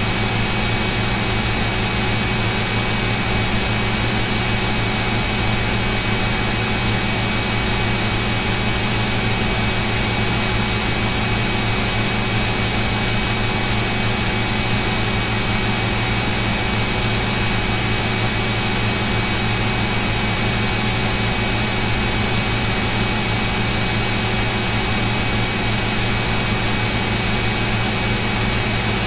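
A steady, unchanging hiss with a constant low hum, like a fan or motor running.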